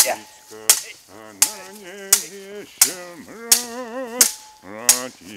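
Swords clashing in a staged duel: about eight sharp strikes at an even pace, roughly one every 0.7 s. A wavering, voice-like sound fills the gaps between the strikes.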